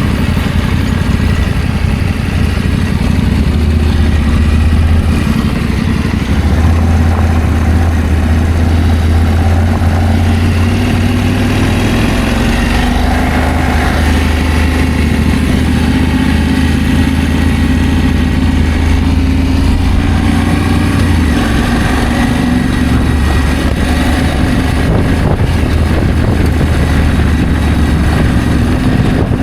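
Adventure motorcycle engine running while under way, a steady low note that shifts slightly in pitch a few times as the throttle changes.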